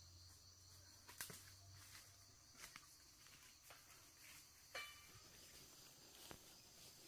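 Near silence: faint steady insect chirring with a handful of soft clicks, roughly one every second or two.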